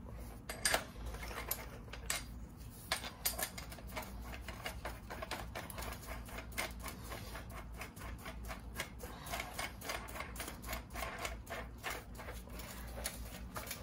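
Rapid, irregular metal clicks and clinks from a bearing press kit as it is closed up around the trailing arm bushing and its threaded screw is turned by hand.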